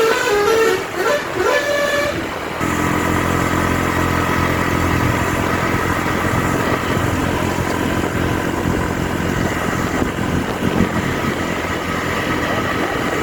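Telolet bus horn playing a quick melody of stepping tones for about two and a half seconds, then breaking off. After that a vehicle engine runs steadily with road noise.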